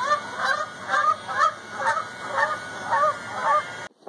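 A bird calling over and over, about eight short calls bending in pitch at roughly two a second, cut off suddenly near the end.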